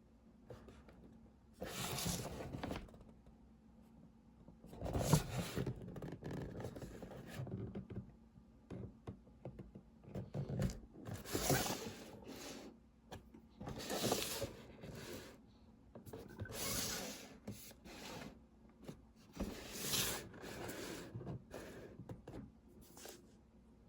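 Packaging of a scale model car being handled and opened: bouts of scraping and rustling, several seconds apart.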